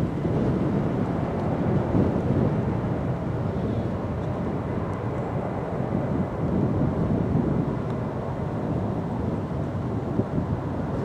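Wind buffeting the microphone over the low rumble of a jet airliner's engines.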